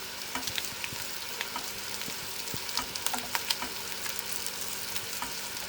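Steak and a creamy mushroom sauce cooking in pans on the hob: a steady sizzle with frequent small crackles and pops, over a faint steady hum.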